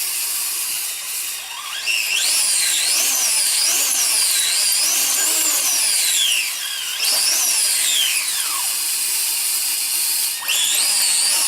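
Electronic dance music intro with a harsh, drill-like synth whine that swoops up and down in pitch. It cuts off suddenly at the end.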